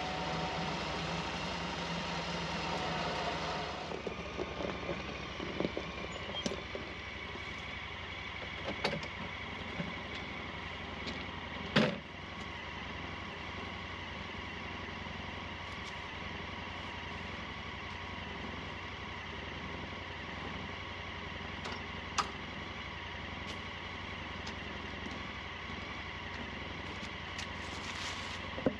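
Side-by-side UTV engine running steadily at idle, a little heavier for the first few seconds, with a few sharp clicks over it, the loudest about twelve seconds in.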